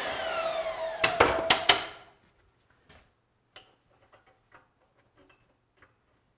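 A spinning shop tool winding down, its whir falling in pitch over the first two seconds, with four sharp metallic knocks between about one and two seconds in. After that come only faint clicks and taps of stainless header tubing being handled against its flange.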